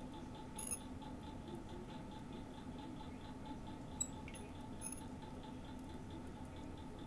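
Pin vise turned by hand, drilling a tiny hole through a small model part: nearly silent work over a faint steady hum, with three light clicks, about a second in, at four seconds and near five seconds.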